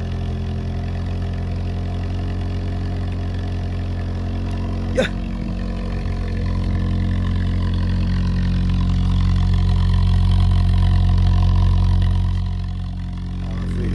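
Red VW Golf Mk1 (Citi Golf) hatchback engine idling steadily with an even idle through its twin tailpipes, growing a little louder after about six seconds. One short click about five seconds in.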